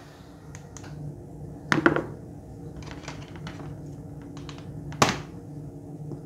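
Handling noises: scattered clicks and taps, with two louder knocks about two seconds and five seconds in, over a steady low hum.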